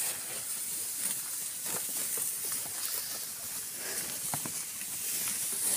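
Rustling and crunching of dry grass under hooves and footsteps as a herd of cattle and buffalo moves through, scattered short clicks over a steady high hiss.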